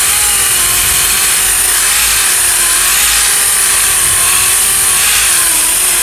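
Orbital sander running steadily on automotive body work: a continuous high hiss with a whine that wavers slightly in pitch as pressure on the pad changes.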